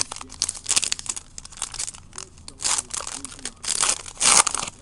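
Trading card pack wrapper crinkling and tearing open in a run of irregular rustles and rips, the loudest about four seconds in, with cards being shuffled in hand.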